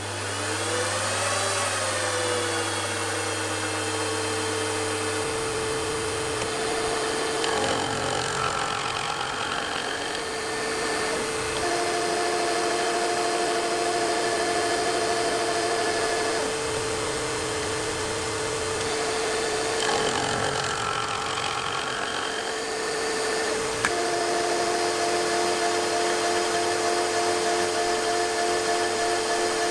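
Milling machine spindle running with a gear cutter cutting teeth in a gear blank, played at four times speed. The spindle spins up at the start and then runs steadily, while the cutting noise comes and goes as the cutter goes through the blank.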